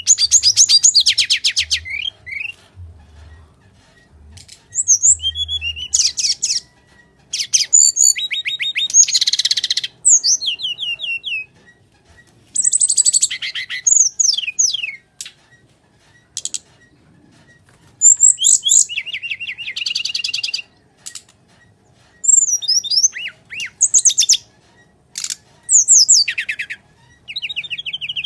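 Caged SRDC (sikatan rimba dada coklat, brown-chested jungle flycatcher) singing in full fighting mode. It gives loud phrases of rapid trills and high sweeping whistles, burst after burst with short pauses between.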